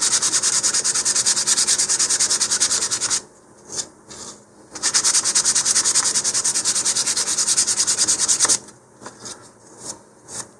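Sanding block with 220-grit sandpaper rubbed quickly back and forth over the face of a wooden rocket fin, about five strokes a second, smoothing the dried sanding sealer. It runs in two spells with a pause of about a second and a half between them, and a few light handling knocks follow near the end.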